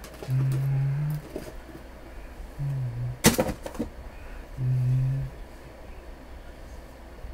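A man humming three short low notes, the middle one sliding down a little. About three seconds in there is a brief sharp clatter of a cardboard box and card holder being handled.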